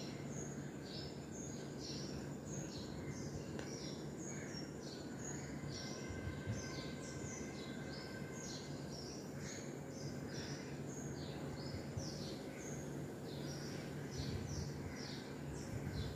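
Many small birds chirping, with short high notes repeating several times a second throughout, over a steady low hum.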